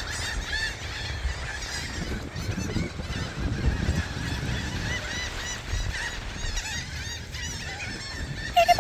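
A flock of seagulls calling, many short high cries overlapping, over a low rumble. Just before the end a nearer gull starts a louder run of quick repeated calls.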